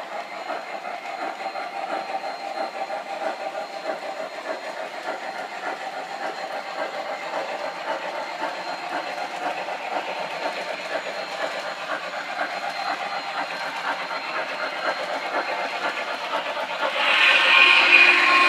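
MTH O-gauge Blue Comet model steam locomotive playing a Daylight sound file, chuffing rapidly at speed with the rumble of the train on the track. It gets much louder about three seconds before the end as the locomotive comes close.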